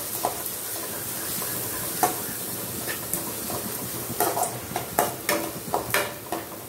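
Chopped onions sizzling in hot oil in an aluminium kadai, being sautéed until translucent, while a metal spoon stirs them with repeated scrapes and clinks against the pan.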